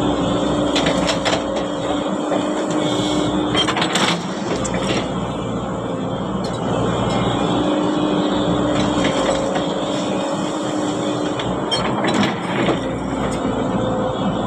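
Heavy earthmoving machinery running, its diesel engine holding a steady hum, with a few sharp knocks about four seconds in and again near twelve seconds.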